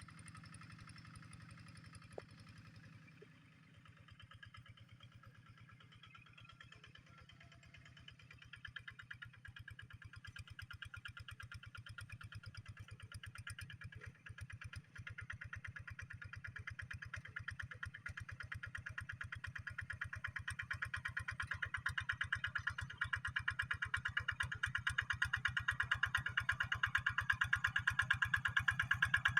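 Rice-field tractor's D12S engine running with a steady, fast, even pulse, growing gradually louder over the last two-thirds.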